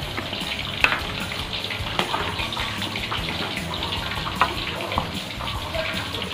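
A coconut-milk stew simmering in a metal wok while a wooden spatula stirs it, giving a steady bubbling hiss. The spatula knocks against the wok a few times.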